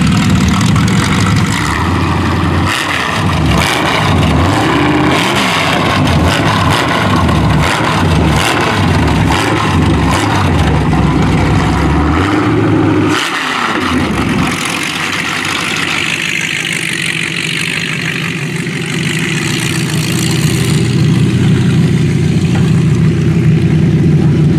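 A demolition derby car's engine being revved over and over, its pitch rising and falling about once a second, then dropping off. A steady engine idle builds up again near the end.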